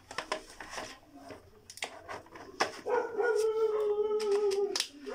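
Plastic clicks and knocks of a battery pack being pushed into a cordless drill's handle, then a loud, steady whine with a slight downward slide lasting about two seconds.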